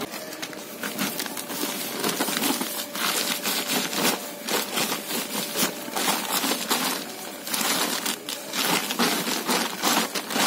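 Plastic sack of bentonite earthing powder crinkling and rustling as it is tipped. The gritty, chip-like powder pours out in an uneven, continuous rattle.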